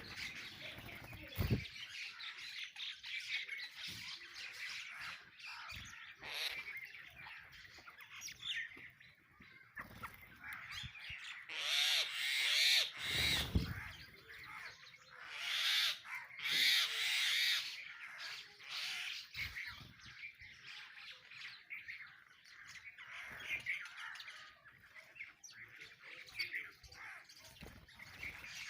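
A flock of sparrows chirping continuously. Louder, harsher calls break in twice near the middle, and a short dull thump comes about a second and a half in.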